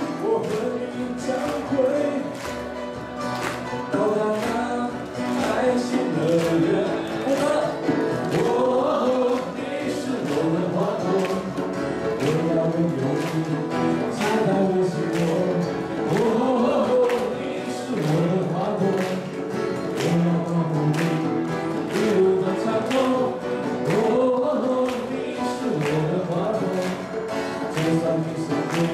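Live band playing an upbeat pop song: acoustic guitar, piano and a djembe keeping a steady beat of about two strikes a second, with singing over it.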